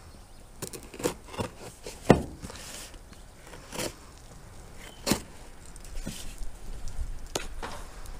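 Cardboard box being cut open with a folding knife: short scrapes of the blade through the packing tape and scattered clicks and knocks as the box is handled on a pickup tailgate, the sharpest knock about two seconds in.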